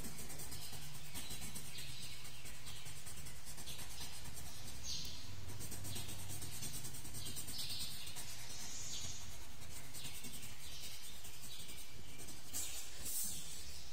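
Colored pencil scratching on paper in short shading strokes, roughly one a second.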